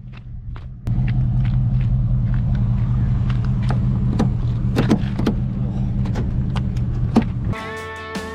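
Range Rover P38 on the move: a steady low engine drone comes in abruptly about a second in, with many sharp knocks and clicks over it. Music starts near the end.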